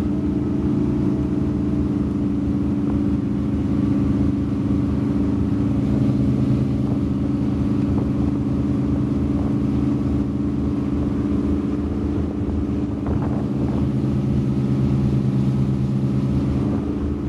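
Fountain Lightning powerboat's engines running steadily underway, their pitch holding level.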